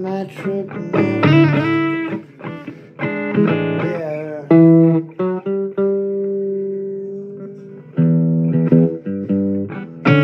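Blues guitar music: single notes with pitch bends, and one long note held for a few seconds in the middle that slowly fades.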